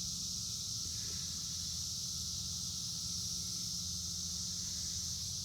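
Steady, unbroken chorus of insects, cricket-like, with a low rumble beneath it.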